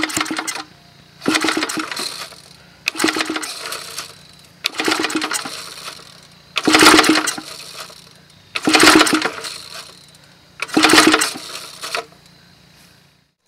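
Recoil starter rope on a homemade piston-valve small gasoline engine pulled about seven times, roughly every two seconds, each pull a whirring rattle that dies away. The engine is cranked over without catching and running: a hard start after the valve adjustment.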